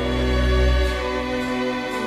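Background music: slow, held instrumental notes without singing, with a deep bass note sounding for about the first second before the notes change.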